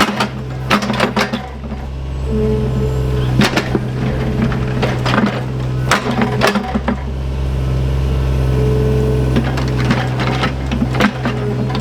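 Diesel engine of small earthmoving plant running steadily, with repeated sharp knocks and clanks, and a brief higher whine that comes and goes a few times.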